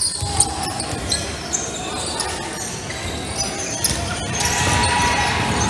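A basketball bouncing on a hardwood gym court, with people talking in the background.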